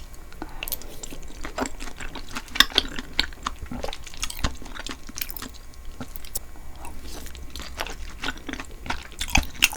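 Close-miked chewing of spicy beef-tripe tteokbokki: rice cakes and beef small intestine being chewed, with irregular mouth clicks throughout.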